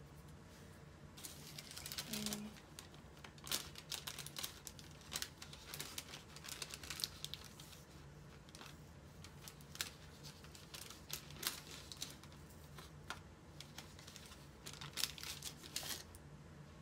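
Sticker sheets and paper crinkling and rustling in irregular crackly bursts as stickers are peeled off their backing and handled.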